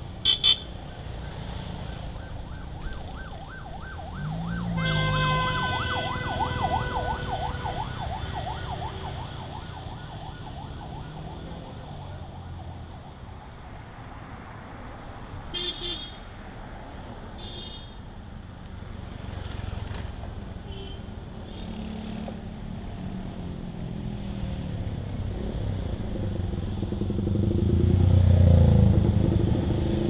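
Road traffic of motorbikes and cars passing on a wet road, with engine hum and tyre noise. There are short horn beeps at the start, a warbling siren tone about five seconds in that fades out over several seconds, and another brief horn near the middle. Near the end a car passes close, loudest of all.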